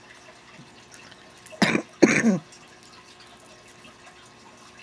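A woman coughs twice in quick succession, about a second and a half in.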